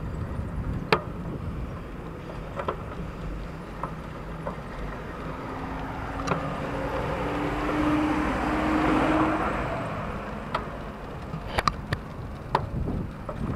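A car passes by the bicycle, growing louder to its loudest about eight to nine seconds in and then fading, over a steady low rumble of wind on the microphone. Scattered sharp clicks and rattles come from the bicycle on the rough concrete road.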